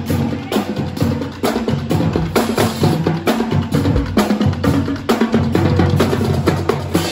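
Marching drumline playing a fast, dense cadence: Pearl marching snare drums, multi-drum tenors and tuned bass drums struck together in rapid strokes.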